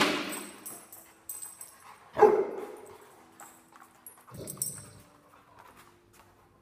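A big dog barks: a loud bark right at the start and another about two seconds in, then a lower, softer woof about four and a half seconds in.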